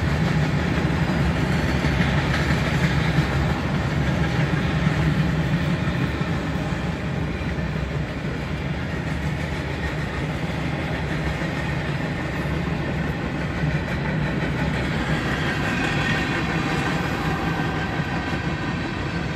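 Long freight train passing: the continuous, steady rolling noise of boxcars and tank cars on the rails.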